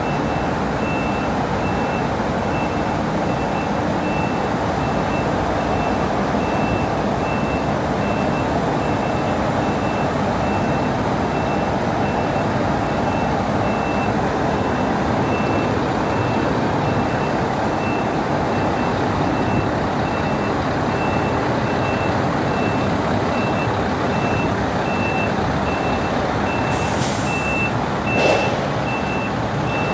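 Reversing alarm beeping at a steady rate of about one and a half beeps a second over the steady running of a Scania 164L 580 V8 diesel truck engine as the truck backs up. Two short hisses come near the end.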